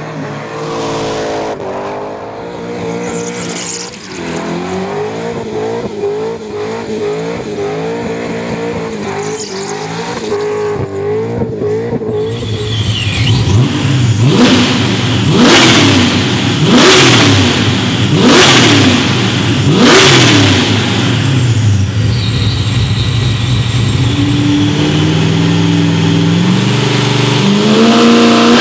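LS V8 swapped into a Nissan Skyline doing a burnout, held at high revs with the pitch wavering up and down. About twelve seconds in it changes to a supercharged LS V8 with a belt-driven centrifugal blower in a Holden Commodore on a chassis dyno: four sharp revs about a second and a half apart, then lower running that climbs in steps near the end.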